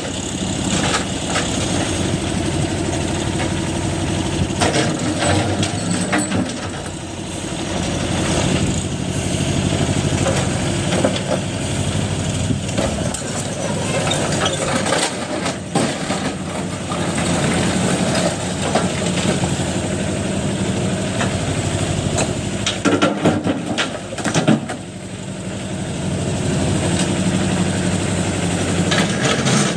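A TMX 20 excavator's diesel engine running, its level swelling and dipping as it works, with scattered knocks and clatters.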